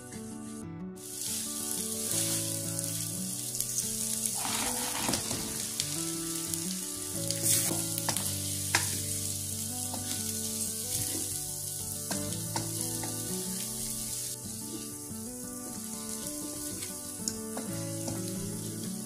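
Green chili sambal sizzling in oil in a wok, stirred and scraped with a wooden spatula, with chicken pieces tossed through it. Soft background music with a slow melody plays underneath.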